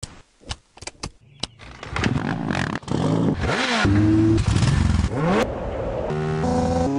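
A few sharp clicks of a key turning in an ignition, then a motorcycle engine starts and revs, its pitch rising and falling. Near the end it pulls away, climbing in pitch in steps as it shifts up through the gears.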